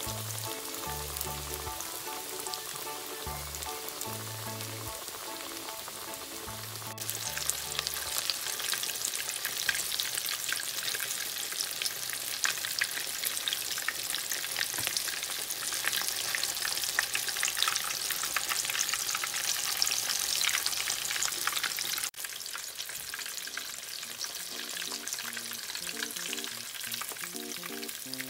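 Breaded minced-pork cutlets deep-frying in hot oil: a dense, steady crackling sizzle that grows louder about seven seconds in.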